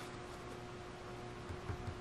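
Quiet room tone: a faint steady hiss with a thin steady hum, and a few soft low bumps near the end.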